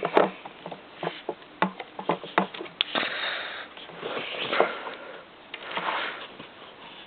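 Irregular clicks, knocks and scraping of plastic parts being handled as the floor nozzle is fitted onto a Kirby Legend 2 vacuum cleaner. No motor is heard running.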